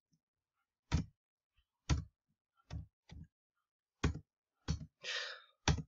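Computer mouse clicks: about seven single, sharp clicks spaced roughly a second apart, with a brief soft rustle about five seconds in.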